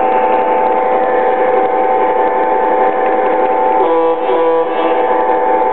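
Lionel Legacy F7 model diesel locomotive set's electronic RailSounds playing a steady pitched drone, with a brief change in the pattern about four seconds in.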